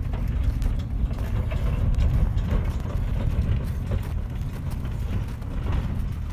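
Pickup truck towing a stock trailer driving off down a snowy lane: a steady low engine and road rumble.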